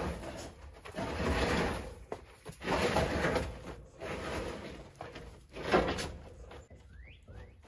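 An empty 275-gallon IBC tote, a plastic tank in a steel cage on a pallet, being rocked and walked across dirt. Its cage and pallet scrape and knock in repeated bursts about once a second.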